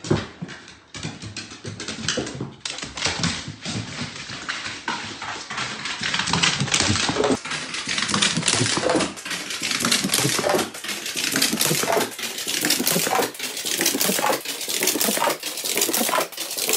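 Dog's claws and paws clattering rapidly on hardwood stairs and floor as it runs. The audio is sped up in steps, so the clatter gets faster, denser and louder toward the end.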